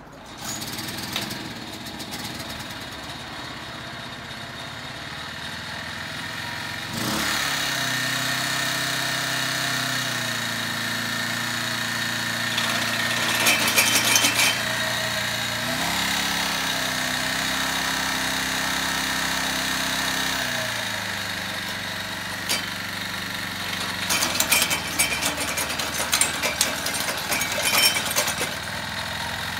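Kubota Midy TMA300 mini tiller's 2.4-horsepower engine catching and running, first at low speed, then throttled up about seven seconds in, higher still for a few seconds in the middle before easing back. Near the end, a rapid irregular clatter of the steel tines knocking on the asphalt over the engine.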